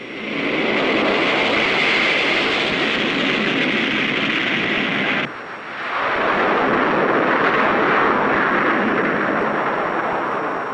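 Swept-wing jet bomber taking off with rocket assist (JATO): a loud, steady rushing roar of jet engines and takeoff rockets. It breaks off abruptly about five seconds in, starts again half a second later, and begins to fade near the end.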